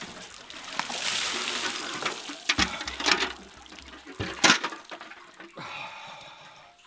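Well water pouring and splashing over a man's head and shoulders as he washes: a rush of water about a second in, then several separate heavier splashes.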